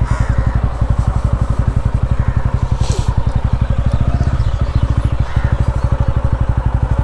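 TVS Ronin 225's single-cylinder engine running at low revs, a steady rapid pulsing of firing strokes, with a brief hiss about three seconds in.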